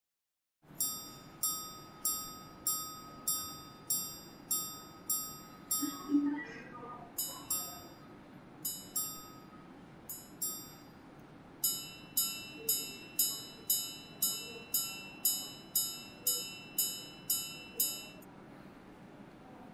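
Jaeger-LeCoultre minute repeater wristwatch striking the time on its gongs. First comes a run of about nine evenly spaced single strikes for the hours, then a few paired two-tone strikes for the quarters, then a longer run of single strikes on a brighter gong for the minutes, each note ringing and fading.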